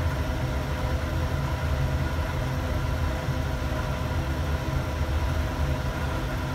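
Steady low machine hum, like a running motor, with faint steady tones above it and no change in its course.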